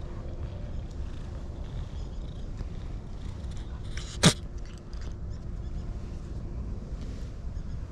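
Ginger tabby cat purring as it is stroked, a low steady rumble. About four seconds in, one short sharp sound stands out as the loudest moment.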